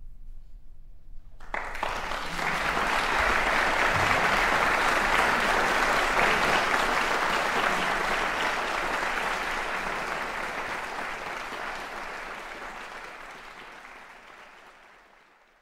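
Audience applauding after a brief hush, starting about a second and a half in, swelling, then slowly fading out toward the end.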